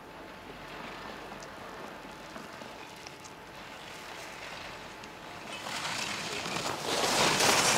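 Skis carving and scraping on packed snow through giant slalom turns. The hiss swells and grows loud over the last two seconds as the skier nears.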